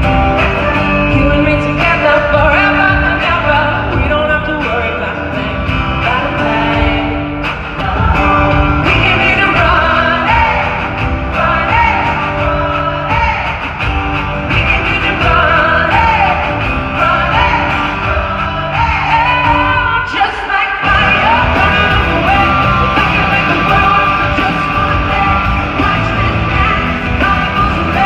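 Live pop-rock concert music: a woman singing over a full band with guitars, heard from the audience in a large arena. The band drops out for a moment about twenty seconds in, then comes back in full.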